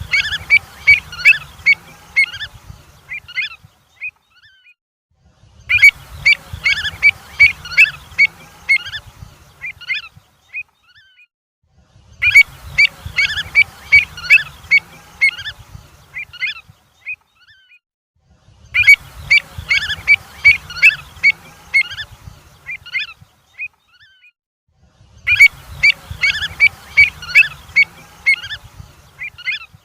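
Avocets calling: bursts of rapid, sharp call notes, about four to five a second, each burst lasting about four seconds and recurring about every six and a half seconds in the same pattern, with a low rumble under each burst.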